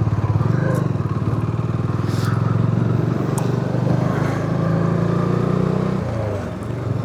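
Motorcycle engine running steadily at low revs, its pitch shifting a little, easing off briefly near the end.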